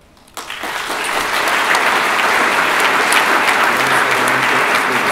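Audience applauding: the clapping starts suddenly about half a second in, builds quickly, then holds as a steady round of applause.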